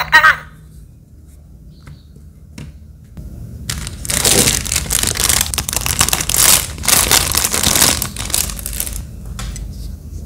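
Thin clear plastic bag crinkling and rustling as a wristwatch is pulled out of it. It starts about four seconds in, runs for about five seconds as a dense crackle, then fades.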